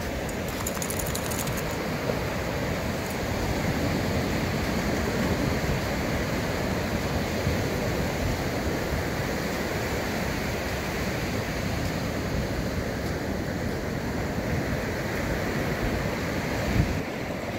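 Ocean surf: a steady rush of waves breaking and washing up the shore.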